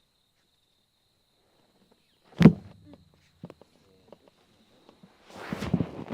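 A single sharp thump about two and a half seconds in, from a side-lying chiropractic adjustment thrust onto the treatment table, followed by a few small clicks and then rustling and shifting of the body on the table near the end.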